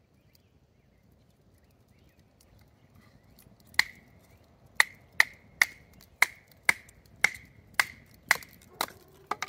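A wooden baton striking the spine of a Holtzman's Baby Bloodline knife, batoning it down through a stick to split kindling. About a dozen sharp knocks, roughly two a second, start about four seconds in, each with a short metallic ring from the blade.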